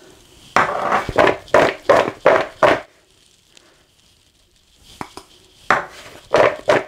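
Raw, flour-dusted potato fries shaken around in a bowl: two bouts of quick rhythmic rattling swishes with a quiet pause between them, coating the chips in corn flour.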